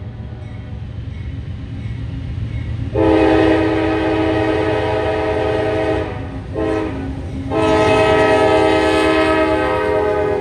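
Locomotive air horn sounding a long blast, a short blast, then another long blast: the end of the long-long-short-long grade crossing signal. Under it is the steady rumble of the passing train.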